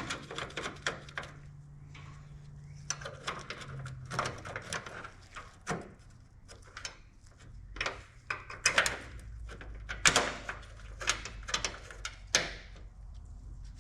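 Hand tools and metal parts of a truck's hood latch clicking, knocking and scraping irregularly as the latch is worked on, with a few louder clacks in the second half.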